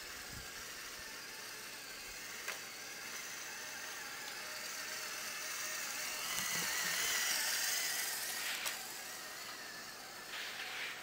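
LEGO Power Functions M motors and the geared-down drive train of a motorized model truck whirring with a high thin tone as it drives. The whir grows louder as the truck comes close and eases off near the end, with two sharp clicks along the way.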